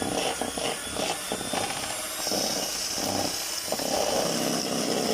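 Electric mixer running, its beaters working the almond cream mixture (butter, sugar and ground almonds) in a bowl, with a steady high whine from about two seconds in.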